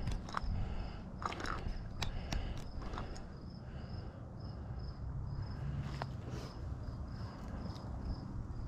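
Wind rumbling on the microphone, with a faint high chirping that pulses a few times a second and a few crunchy clicks in the first three seconds.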